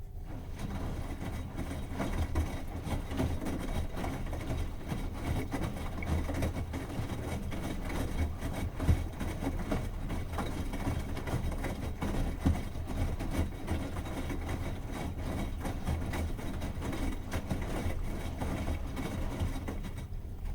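Bosch washing machine drum turning a load of laundry: an uneven rumbling churn with many small knocks. It cuts in abruptly and stops abruptly, leaving a quieter hum.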